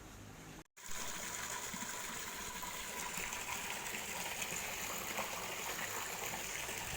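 Water gushing steadily out of the pipe of a newly drilled borewell, drawn up by a 0.5 hp satelit pump running. The sound starts after a brief dropout less than a second in.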